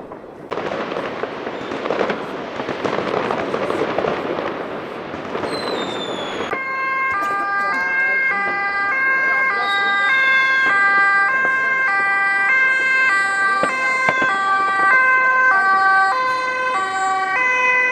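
A rushing hiss from a burning ground fountain firework for the first six seconds or so. Then a Dutch ambulance's two-tone siren starts, jumping between a high and a low note about every half second, with more than one siren sounding out of step.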